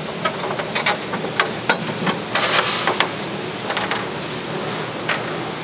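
A UTV rear storage box being handled and lifted off its mounting plate: a string of irregular knocks, clicks and rattles as the box and hardware bump against the frame.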